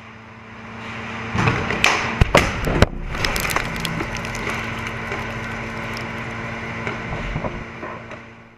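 Battle noise on a tank in combat: several sharp cracks of gunfire between one and three seconds in, then a steady noise with a low hum of the tank's running machinery that fades out near the end.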